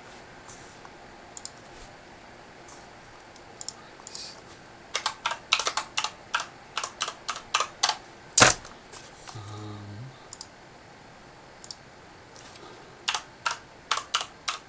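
Typing on a computer keyboard: a few scattered key taps, then a quick run of keystrokes and one louder key press, then more keystrokes near the end.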